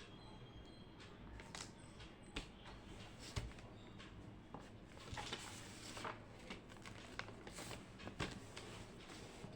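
Faint desk sounds of someone studying: scattered light taps and clicks with a few brief rustles, like paper and stationery being handled, over a low steady room hum.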